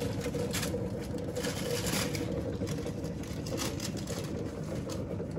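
A steady mechanical hum with a held droning tone, with brief rustling noises coming and going over it.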